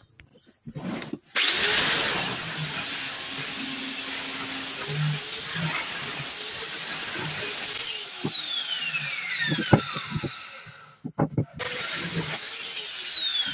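Makita angle grinder switched on and running at a high whine whose pitch wavers as the disc is worked along a wooden speargun stock, then switched off and spinning down with a long falling whine. A few knocks follow, and it is started again and begins spinning down once more near the end.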